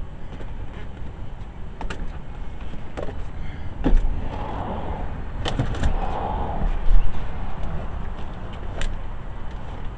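Clunks, knocks and scraping as a Volvo driver's seat is wrestled loose and pulled out of the car, with two longer scrapes in the middle and the loudest knock shortly after.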